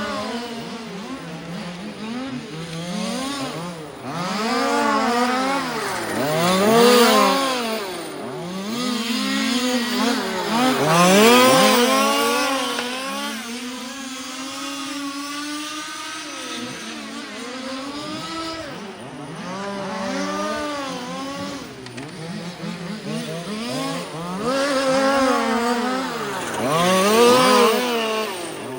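Two-stroke petrol engines of 1:5 scale RC cars revving up and dropping off again and again as they lap the track, sometimes two at once, with louder swells as they pass close by.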